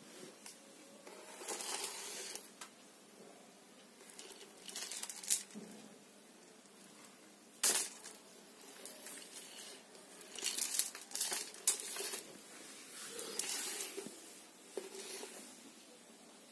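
A beaded garland dragged and jiggled across a tiled floor: several short bursts of rattling and scraping, with one sharp clack near the middle.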